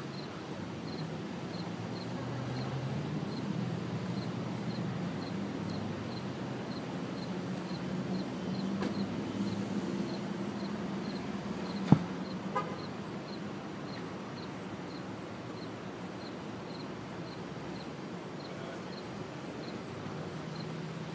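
Outdoor traffic noise: a nearby vehicle engine hums, swelling for several seconds and then fading, while a faint high chirp repeats steadily a little more than once a second. One sharp click is heard about twelve seconds in.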